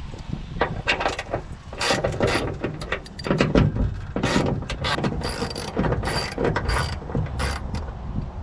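Ratchet wrench clicking in short bursts, turning the 10 mm nuts off the hood latch hinges.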